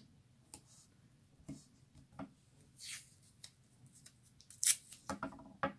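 Thin hot-foil sheet crinkling and rustling under the fingers as small pieces of low-tack tape are pressed onto it: a series of short, scattered crackles, the loudest about three-quarters of the way through.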